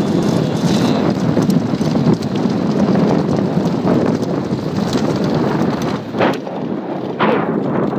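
Wind buffeting the microphone of a camera riding along on a moving bicycle: a steady rushing noise, with two brief louder surges near the end.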